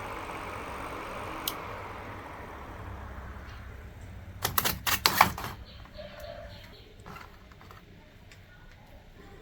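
A small homemade battery fan's motor whirring and fading away over the first few seconds, then a quick burst of sharp clicks and clatter about four and a half seconds in, followed by a few light ticks.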